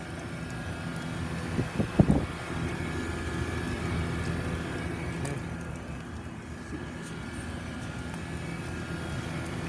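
Trane heat pump outdoor unit running: a steady drone of the condenser fan and compressor with a constant low hum. A few short knocks about two seconds in.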